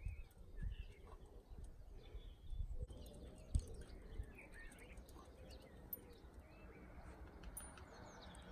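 Faint birdsong: several small birds chirping and singing in short, rising and falling notes, with a few low thumps, the sharpest about three and a half seconds in.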